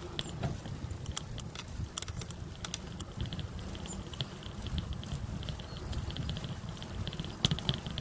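Bicycle riding on a concrete path: a steady low rumble of wind and tyres, with scattered sharp clicks and rattles and short bursts of fast, light ticking.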